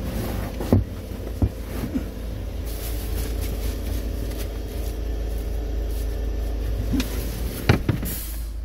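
Clear plastic protective film on car seats crinkling and rustling as it is handled. A few sharp crackles and knocks stand out about a second in and again near the end, over a steady low hum.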